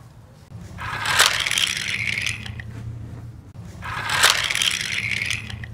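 Wooden toy train engine rolling down a plastic ramp track, its wheels rattling in two stretches of about two seconds each, each with a sharp clack partway through.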